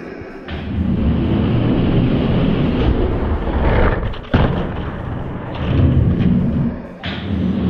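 Die-cast toy monster trucks rolling down a racing track: a loud, continuous rumble and clatter of wheels on the track, with a sharp knock about four seconds in.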